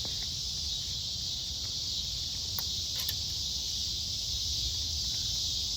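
Steady high-pitched chorus of insects, a continuous buzzing drone with no break, over a low rumble, with a couple of faint ticks about three seconds in.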